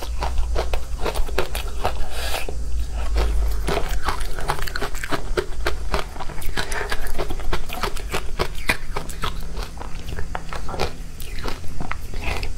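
Close-miked crunching and chewing of powdery ice dusted with matcha powder: a dense run of rapid, crisp crunches as mouthfuls are bitten and chewed.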